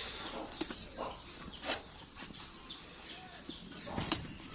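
Chickens clucking now and then, a few faint short calls among scattered light clicks and rustles.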